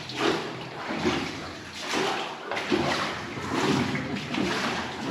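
Oars dipping and splashing in river water as a small boat is rowed, in an even rhythm of roughly one stroke a second.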